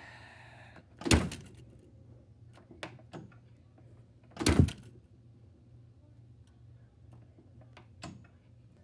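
Two loud plastic knocks about three and a half seconds apart, each a quick double strike, with a few lighter clicks between and near the end: a cracked VHS cassette's hard plastic shell knocking about.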